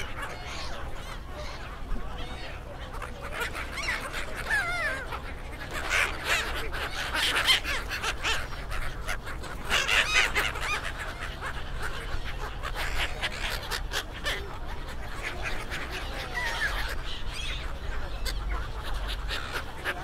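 A large flock of brown-headed gulls calling, many harsh overlapping cries, thickest about midway, with a crowd's voices beneath.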